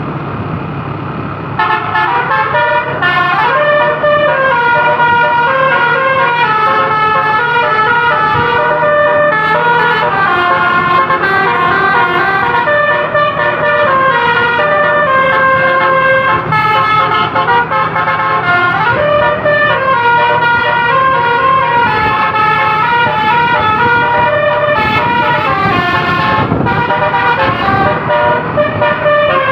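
Basuri telolet horn playing a melody, its notes stepping from pitch to pitch and now and then sliding up or down. It starts about a second and a half in, over an engine running steadily underneath.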